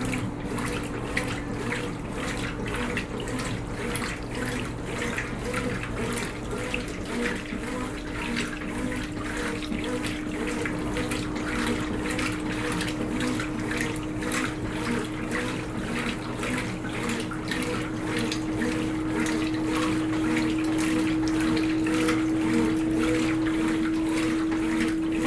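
Brastemp Tira Manchas Pro 12 kg washing machine running with water rushing. A steady motor hum rises slowly in pitch, over a rhythmic swish about twice a second.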